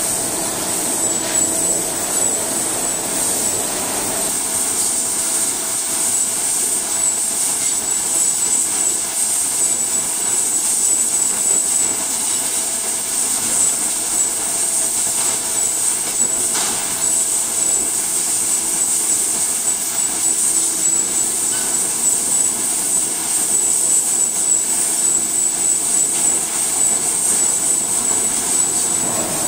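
Steady machinery noise of a crab-processing line, with conveyors and stainless processing machines running, and a steady high-pitched whine over it.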